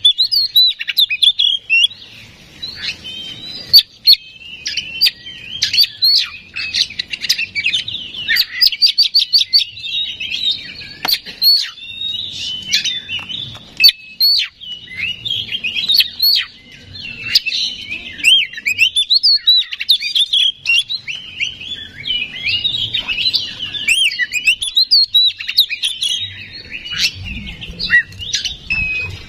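Oriental magpie-robin (kacer) singing without pause: a fast, varied stream of loud whistles, trills and sharp clicks, with a quick rattling run about nine seconds in. This is the excited, full song played as a lure to rouse other magpie-robins into singing.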